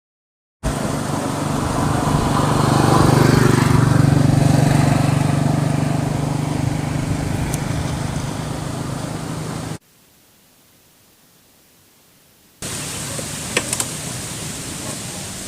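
Honda Click 150i single-cylinder scooter engine running through an aftermarket Akrapovic-style slip-on exhaust. It swells louder about three to four seconds in, then eases back. The sound cuts off abruptly near ten seconds, and after a quiet stretch a lower, steady running sound returns with a couple of sharp clicks.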